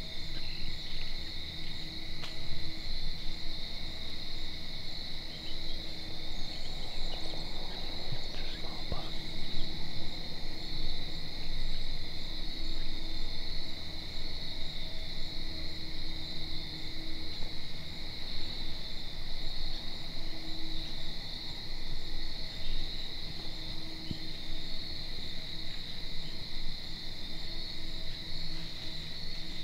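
Steady chorus of crickets: a continuous high trill with a fainter, lower trill beneath it, over a low rumble.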